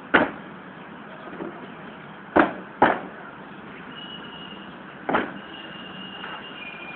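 NCC cadets' boots stamping on paving in quarter-guard drill: four sharp stamps, one at the start, two about half a second apart a little past two seconds in, and one about five seconds in, with a couple of fainter ones between. A faint steady high tone comes in during the second half.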